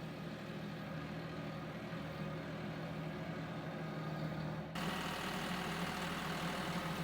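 John Deere tractor engine running steadily while it tows a cedar log. About five seconds in the sound changes abruptly, with more hiss and rumble under the engine tone.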